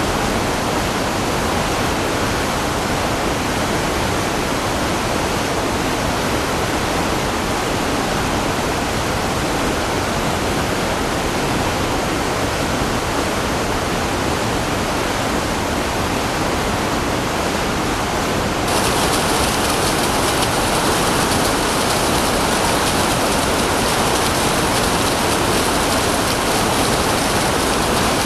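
Waterfall water rushing in a steady, even roar. About two-thirds of the way through it switches abruptly to a brighter, hissier and slightly louder rush of falling water.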